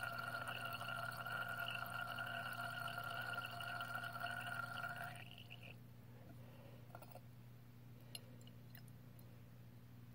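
Silver nitrate titrant running from a burette into a glass Erlenmeyer flask gives a steady ringing tone that stops about five seconds in, as the stopcock is closed. A faint steady hum continues underneath, with a few light clicks near the end.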